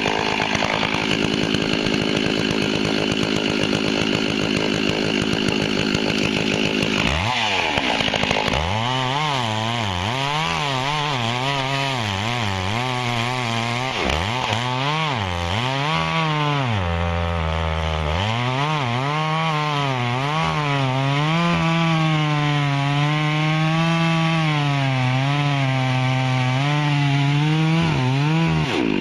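Stihl 064 two-stroke chainsaw cutting through a willow log: it is held at high revs at first, then from about seven seconds in the engine pitch rises and falls again and again as the chain loads and frees in the cut, settling lower for a moment around two-thirds of the way through.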